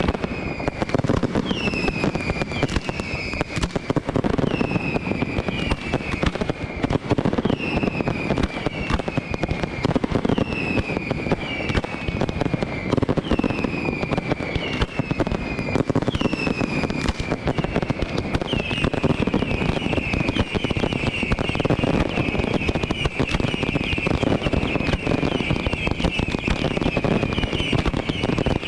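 Aerial fireworks display: continuous crackling and bangs, with short whistling shells each falling in pitch about once a second, building near the end into a dense, overlapping run of whistles.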